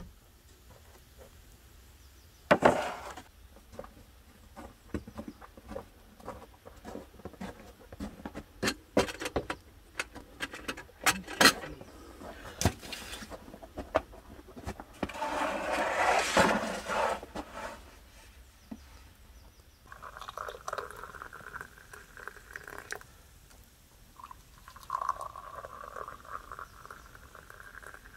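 Glasses and tea things clinking and knocking on a wooden table, a splashy pour about halfway through, then tea poured from a glass teapot into glasses in two streams of about three seconds each near the end.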